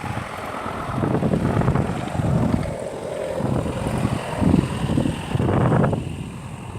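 Wind buffeting the microphone: a low rumble that swells and drops in gusts.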